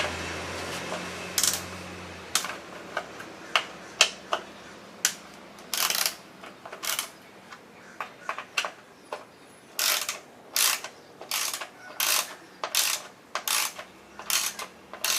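Hand ratchet wrench being worked: scattered clicks at first, then a steady run of ratcheting strokes, about one every 0.7 seconds, from about ten seconds in. A low hum fades out in the first two seconds.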